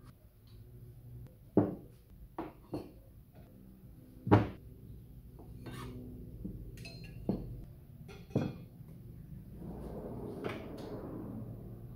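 Small wooden storage drawers and hard items being handled on the bench: a series of sharp knocks and clatters, the loudest two about a second and a half and four seconds in, and a brief scraping rustle near the end.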